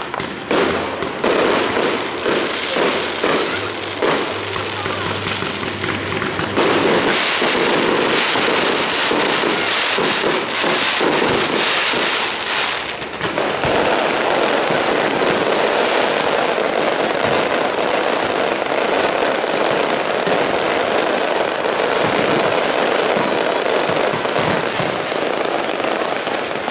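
Fireworks display going off: a continuous run of bangs and crackling, thickening into a dense, unbroken crackle from about halfway through.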